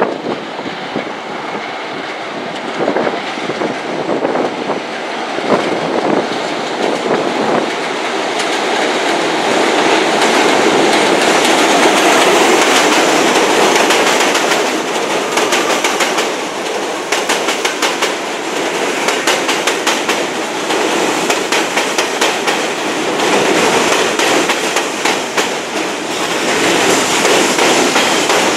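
R68A subway train on an elevated steel structure, its rumble growing louder over the first ten seconds or so as it comes alongside. Through the second half the wheels give a quick, regular clickety-clack over the rail joints.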